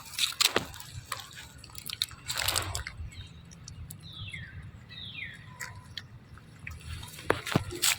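A baby monkey chewing and smacking on food, with sharp wet clicks near the start and again near the end. Two short, falling high squeaks come in the middle.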